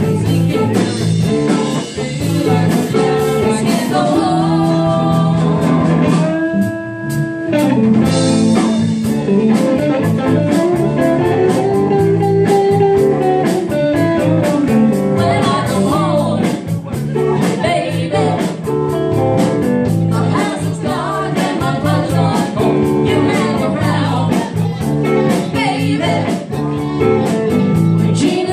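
Live blues-rock band playing: electric guitars, bass guitar, drums and singing, recorded on a phone. A long held note stands out about seven seconds in.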